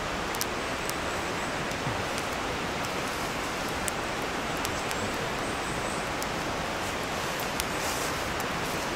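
Steady rush of a shallow mountain stream, with scattered faint crackles from a wood fire burning in a fire pit.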